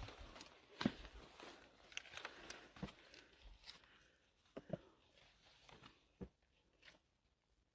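Faint, irregular footsteps and scuffs of a hiker climbing a trail, thinning out toward the end.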